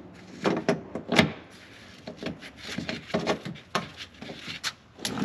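Irregular clicks, knocks and rubbing of parts and tools being handled on the car, as a cover is worked off to reach the high-voltage parts. The sharpest knocks come in the first second or so, followed by lighter scattered clicks.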